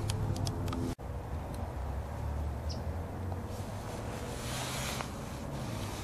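Steady low rumble of distant city traffic. The sound drops out sharply for an instant about a second in, and there is a short high chirp a little before three seconds.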